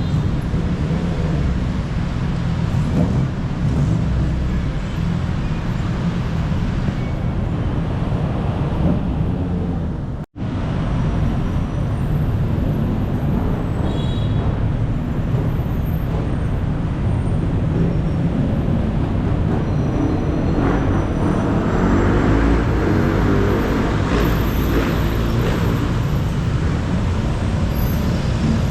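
Heavy city road traffic: a steady din of engines and tyres. It cuts out for an instant about ten seconds in.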